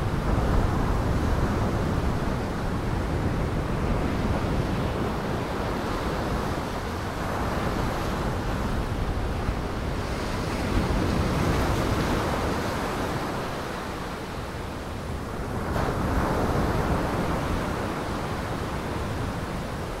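Heavy surf breaking with wind: a steady rushing that swells and eases every few seconds.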